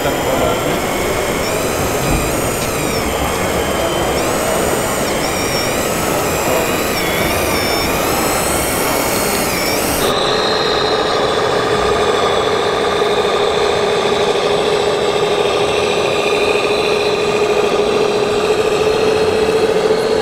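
Hydraulic pump and electric motors of a 1/14-scale Liebherr 960 RC excavator whining, several tones rising and falling in pitch as the boom and bucket move. About halfway through, this gives way suddenly to a steady, even mechanical drone with a held tone.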